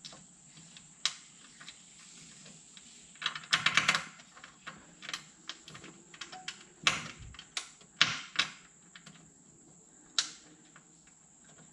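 Scattered clicks and light metal clinks of a bolt, washer and muffler support bracket being handled and fed through under the vehicle. A quick rattling run of clicks comes about four seconds in, and a few sharper knocks follow later.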